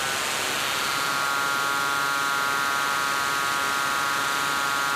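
Live electronic drone: a steady hiss with a cluster of sustained high tones layered over it, fading in just after the start.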